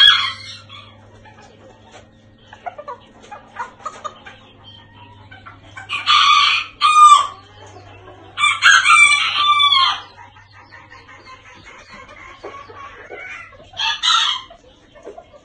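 Serama bantam cockerel crowing twice, each crow about a second and a half long and falling in pitch at the end, about six and eight and a half seconds in, followed by a shorter call near the end.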